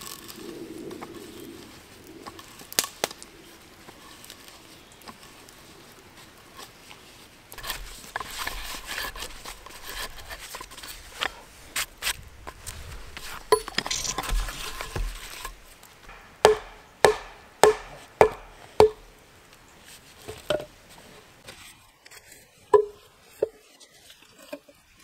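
Rustling and handling noise with low thuds, then five sharp knocks in quick succession, each with a short ring, followed by a few more single knocks.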